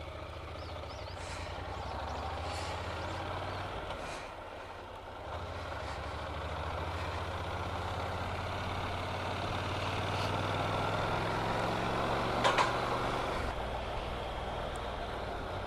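Honda NC750X motorcycle's parallel-twin engine running under way, with wind noise, its note shifting a couple of times as the speed changes. A couple of short knocks sound near the end.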